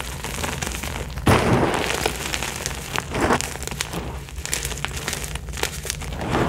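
Hands crushing and rubbing crumbled Picsil crunchy powder blocks: continuous soft crackling and crumbling. There is one sharp loud crunch about a second in, and smaller crunches around three seconds and near the end.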